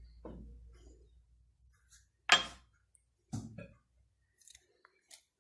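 Two short knocks about a second apart, from kitchen things being handled, with a low hum dying away in the first second and a few faint ticks.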